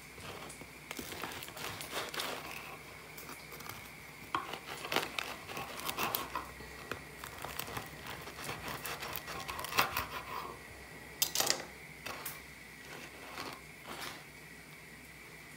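A knife cutting through a crusty homemade cheese-filled bread loaf on a wooden board: the baked crust crackles and crunches in irregular bursts, with the blade and the pieces knocking lightly on the board as slices are cut and set aside.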